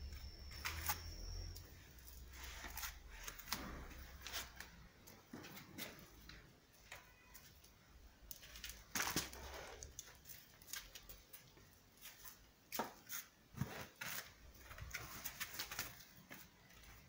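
Faint, irregular clicks and brief rustles of handling noise, with a low hum that fades out in the first few seconds.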